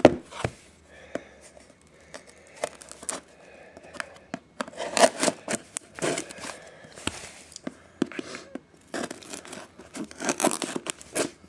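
A trading card box's packaging being torn open and crinkled by hand, in irregular bursts of rustling and sharp clicks.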